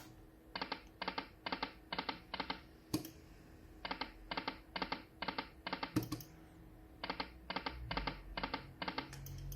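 Video slot machine game spinning: three spins, each with five reels stopping one after another in an even run of clicking stop sounds. A sharper click comes at about the start of the second and third spins.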